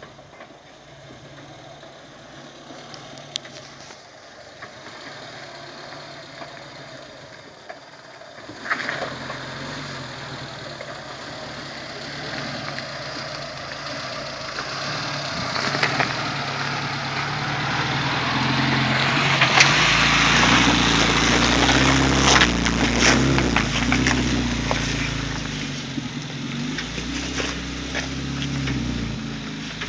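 Suzuki SJ413's four-cylinder petrol engine running at low revs as the 4x4 crawls over rocks. It grows steadily louder as it comes close, is loudest as it passes, then fades a little as it pulls away. Occasional sharp knocks sound over it.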